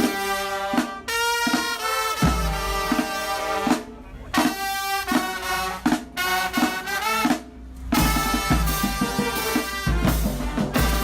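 Marching band brass and drums playing, the horns in phrases broken by short pauses; about eight seconds in the full band comes in with heavier bass and busier drumming.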